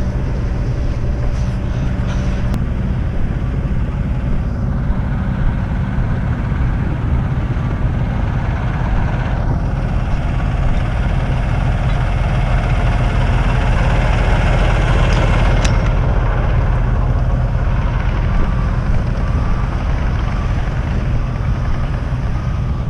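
Heavy diesel truck engine running steadily, swelling a little louder for several seconds midway.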